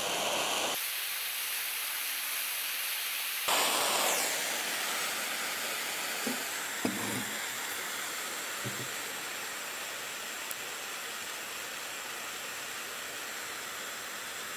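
Small gas torch flame hissing steadily, heating a sliver of plastic. The hiss thins abruptly for a few seconds near the start, comes back sharply, and is joined by a few faint ticks.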